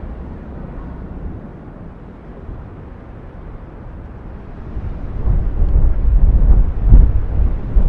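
Deep rumbling of the erupting Cumbre Vieja volcano, low and steady at first, then swelling much louder about five seconds in, with its strongest surge shortly before the end.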